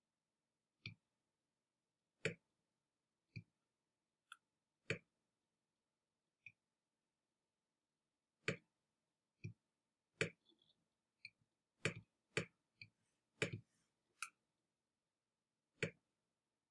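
Computer mouse button clicking, about sixteen short, sharp clicks at uneven intervals, thicker in the second half, with near silence between them.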